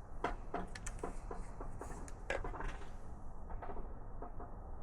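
Scattered light clicks and knocks of hand tools on engine metal, coming irregularly.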